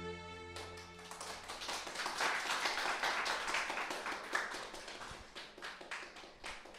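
A small audience clapping. The last sustained chord of the song cuts off just after the start, and the clapping builds and then thins out near the end.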